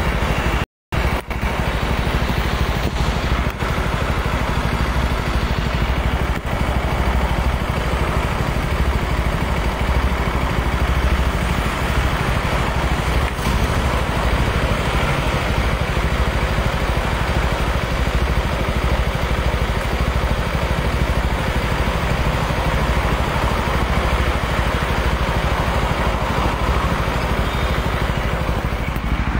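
Road traffic under an elevated expressway: cars, taxis and motorcycles passing with a steady low rumble. The sound cuts out for a moment about a second in.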